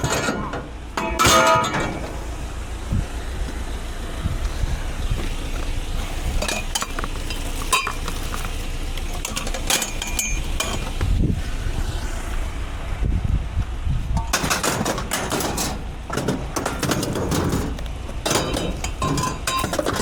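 Scrap metal being handled and loaded onto a van: clanking and rattling knocks, loudest about a second in and again in a dense run of clatter in the last third, over a steady low rumble.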